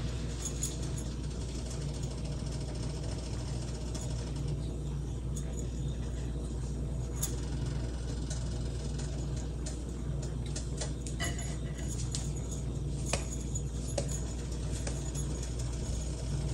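Quiet steady low hum, with a few faint light clicks and soft handling sounds, most of them in the second half, as stuffed paratha dough is pinched shut by hand.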